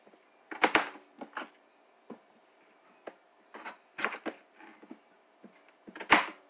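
Chef's knife cutting through whole raw potatoes and knocking on the cutting board: about eight sharp chops at uneven intervals, the loudest near the end.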